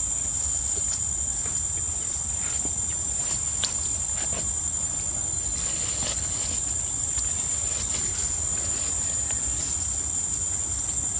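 Insects droning: a steady, high-pitched buzz that does not break, with scattered faint clicks and rustles.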